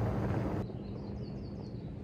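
Pickup truck driving off across a gravel lot, its engine and tyre noise fading away. A bird chirps a quick run of short falling notes about half a second in.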